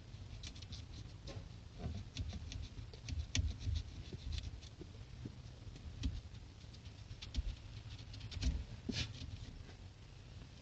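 Scattered light clicks, taps and scratches of small parts being handled and worked on close to the microphone, over a low rumble.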